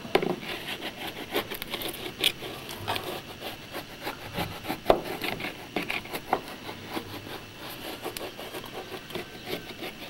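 Bar of soap rubbed up and down a wooden window sash channel, scraping in short irregular strokes, to lubricate a sash that had swollen shut.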